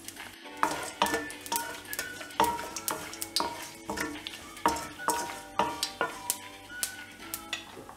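Wooden spoon stirring dried red chillies and cumin seeds in hot oil in an enamelled kadai, knocking and scraping against the pan roughly two or three times a second, each knock with a short metallic ring. Under the knocks the tempering sizzles lightly as it fries.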